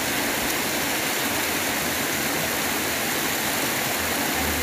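Shallow creek water running over rocks, a steady rush of noise.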